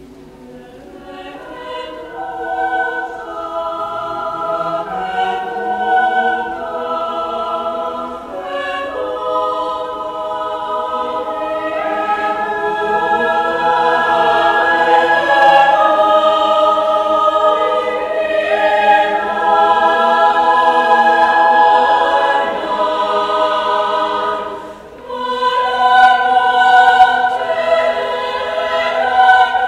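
Large mixed choir singing a cappella in a stone church, starting softly and swelling to full voice within the first few seconds, with a brief drop near the end before the voices come back strongly.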